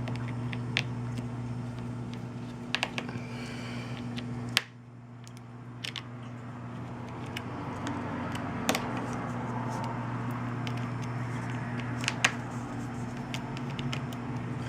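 Small sharp clicks and taps of a precision screwdriver and tiny screws against a smartphone's frame while the screws are taken out, a few scattered clicks over a steady low hum.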